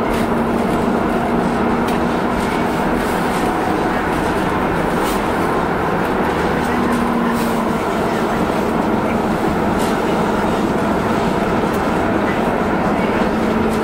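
Milan M5 driverless metro train running through a tunnel, heard from inside the car: a steady rumble of wheels on rail with a low humming tone from the drive.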